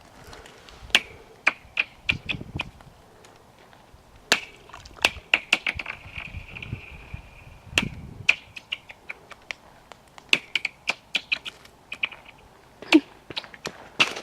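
Ice cracking and pinging underfoot as someone walks across it: many sharp, irregular cracks, a lot of them with a short high ringing tone, and a few dull low thuds.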